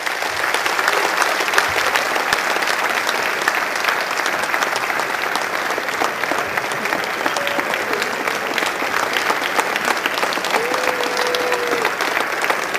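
A large audience applauding, steady dense clapping at the close of a talk.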